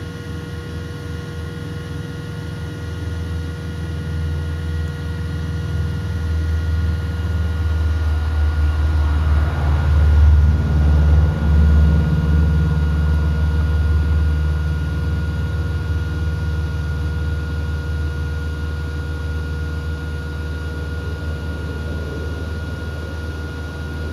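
Low engine rumble that swells to its loudest about halfway through and then slowly fades, like something motorised passing by, over a steady faint hum.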